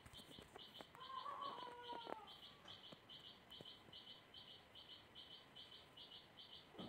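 Near silence, with faint high chirping in the background repeating steadily about two to three times a second, and a brief faint sliding call about a second in.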